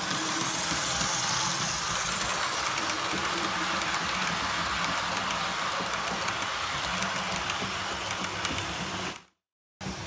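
Model train running on the layout's track: a steady whirr of the locomotive motor and wheels with faint scattered clicks. The sound cuts out abruptly about nine seconds in, then resumes.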